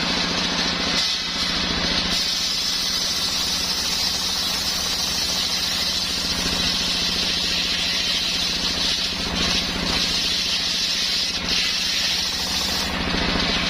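Homemade engine-driven circular saw running steadily, the engine's even firing under a continuous high hiss from the saw.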